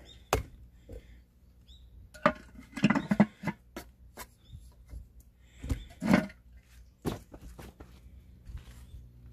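Earthenware lid knocking and scraping as it is set onto the rim of a clay onggi jar barbecue, a handful of separate clunks and short clatters.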